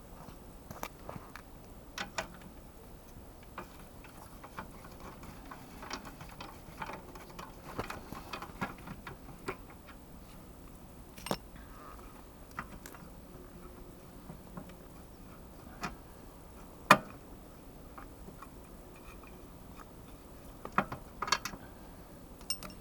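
Hand tools clicking and knocking on metal while a spanner works on a motorcycle's swingarm pivot bolt: irregular clicks, with one louder knock about seventeen seconds in and a quick cluster of clicks near the end.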